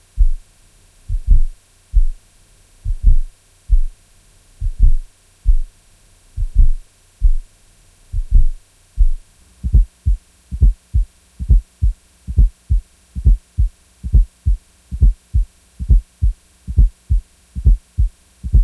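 Heart sounds with an added fourth heart sound (S4 gallop): repeating groups of low thuds, the S4 just before S1 and then S2. They play slowed down at first and then, from about nine seconds in, faster at real-time speed. An S4 is the sign of stiff, non-compliant ventricles.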